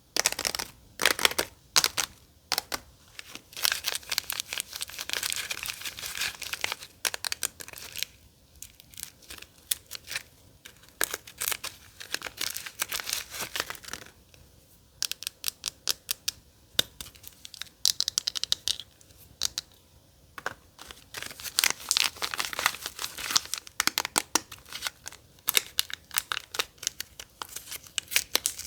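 Soap packaging being torn and crinkled open by hand: a run of crackles, rustles and tearing, coming in bouts with short pauses between them.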